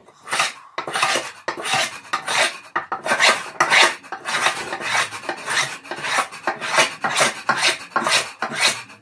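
No. 80 cabinet scraper being pushed across a mesquite board in quick repeated scraping strokes, about two to three a second.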